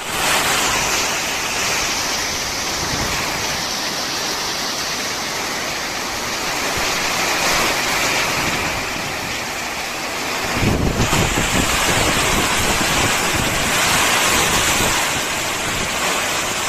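Hurricane wind and heavy rain blowing through palm trees, a loud steady rush of wind and rain. About two-thirds of the way through, gusts start buffeting the microphone with uneven low rumbles.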